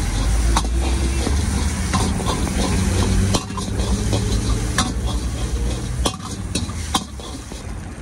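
Long metal ladle scraping and knocking against a large iron wok as eggs are stirred and broken up, frying and sizzling in oil, with sharp clacks several times. A low rumble runs under it for the first three and a half seconds, then drops away.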